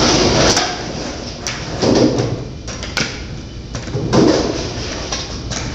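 Skateboard wheels rolling on a concrete floor, a continuous rumble that swells twice, with a sharp clack of a board about half a second in.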